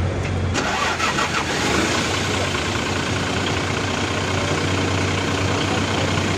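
Mitsubishi Fuso 6M70 inline-six diesel engine being started: the starter cranks, the engine catches about half a second in and then runs steadily. This is a test start for a hard-start fault after the fuel pressure pump timing was reset to its mark.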